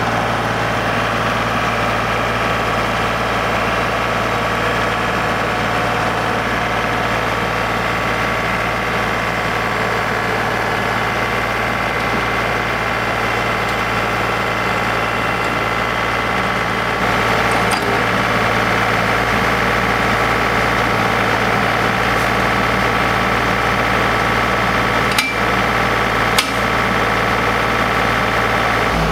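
John Deere 2032R compact tractor's three-cylinder diesel engine running steadily, stepping up slightly in level about two-thirds of the way through. Near the end come two sharp knocks, as the iMatch quick hitch meets the box blade.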